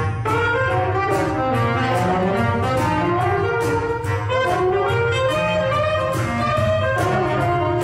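Jazz band playing, with a horn carrying the melody over a steady beat.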